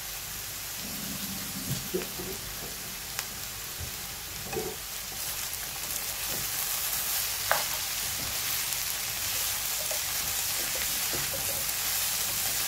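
Shredded potato, carrot and chopped onion sizzling in a hot wok as a spatula stirs them, with a few taps and scrapes of the spatula against the pan. The sizzle grows a little louder about halfway through.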